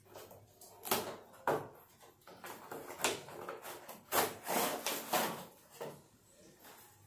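Cardboard toy box being opened: the end flap pulled open and the inner cardboard tray slid out, a series of short scraping and rubbing sounds of cardboard on cardboard, loudest in the second half.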